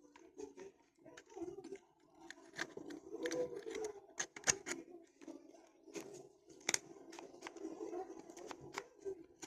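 Irregular clicks and knocks of hard objects being handled, over a faint murmur.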